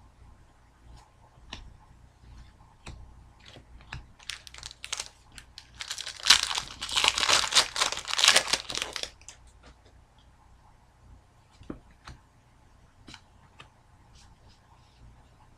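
Foil wrapper of a hockey card pack torn open and crinkled loudly for about three seconds, midway through, between light clicks of cards being handled.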